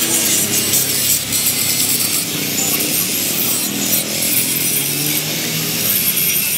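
Handheld angle grinder grinding steel, its disc biting on a pipe and plate with a steady, harsh hiss throwing sparks.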